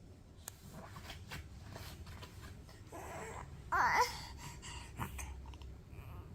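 A six-month-old baby giving one short squealing call that bends in pitch, about four seconds in, over faint clicks and rustles of handling.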